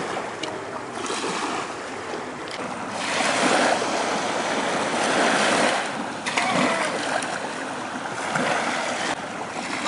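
Sea waves washing against and over a concrete seawall, swelling louder about three seconds in and again a few seconds later.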